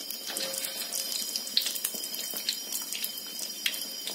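Cassava patties deep-frying in hot oil in a wok: a steady sizzle with frequent sharp crackles and pops.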